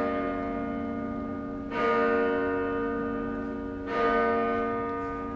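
A church bell tolling: two strokes about two seconds apart, each ringing on and slowly dying away over the hum of the one before.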